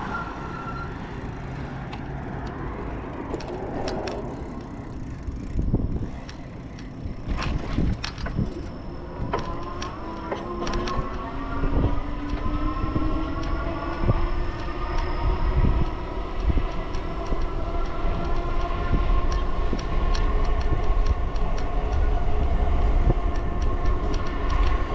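Electric bike motor whining under way, the whine rising slowly in pitch from about ten seconds in as the bike speeds up, over a steady wind rumble on the microphone. Scattered sharp clicks sound along the way.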